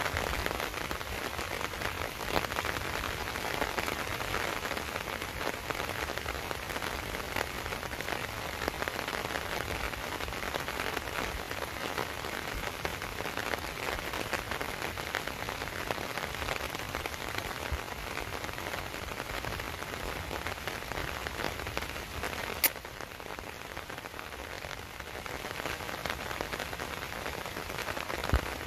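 Steady rain falling, a dense patter of drops hitting surfaces, with a single sharp click about two-thirds of the way through.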